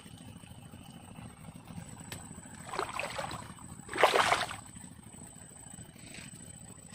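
Water splashing and sloshing in a few strokes, the loudest about four seconds in, over a steady low wash of water.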